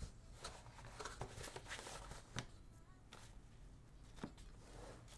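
Faint handling of a cardboard mailer box as its flap lid is opened: soft rustling of cardboard with a few scattered light ticks.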